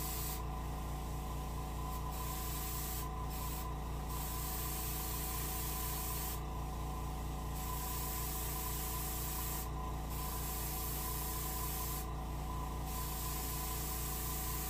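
Airbrush spraying a light mist of paint, a fine hiss that stops and starts about seven times as the trigger is worked, over a steady low hum.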